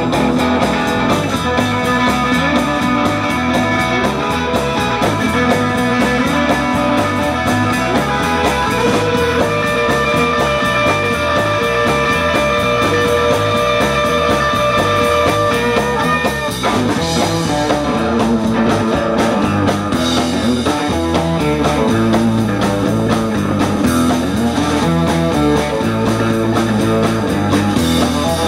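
Live rock band playing an instrumental passage, guitar to the fore over bass and drums, the parts shifting about two-thirds of the way through.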